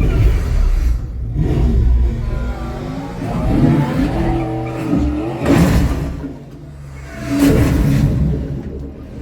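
DTS:X surround demo content playing loudly through a home theatre speaker system driven by a Yamaha AV receiver. It starts abruptly, with heavy bass rumble and rising and falling gliding tones. It dips briefly past the middle, then swells again.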